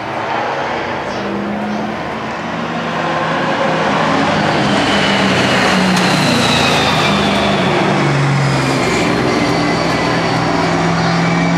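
V8 stock cars running laps on an oval track. The engine noise builds over the first few seconds as a car comes past close by, then holds loud and steady, with the pitch of passing cars gliding down.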